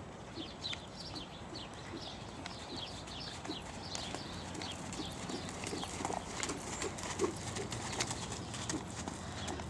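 Hoofbeats of a ridden dressage horse moving over a sand arena, soft and muffled, with birds chirping in quick, repeated high notes.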